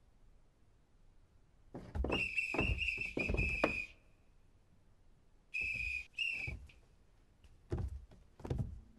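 Cartoon sound effects: a shrill whistle-like tone held for about two seconds over a quick run of thumps, then two short whistle notes, then two soft thumps near the end.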